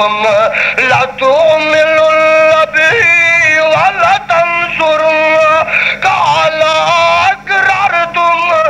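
A man chanting a melody in a high voice, holding long steady notes joined by wavering, ornamented turns, with short breaks between phrases.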